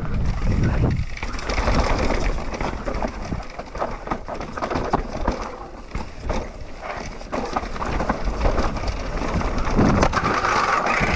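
Mountain bike riding down a rough trail: tyres rolling over dirt and rock, with many sharp clicks and rattles from the bike and a steady wind rumble on the microphone.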